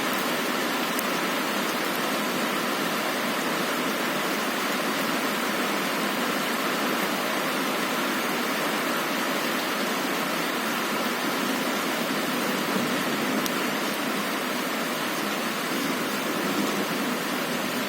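Heavy rain falling steadily on a window, an even hiss with a few faint drop ticks and no thunder.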